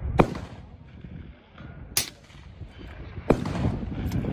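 Precision rifle fired on a timed stage: two loud shots about three seconds apart, each with a short rumbling tail, and a quieter sharp crack between them.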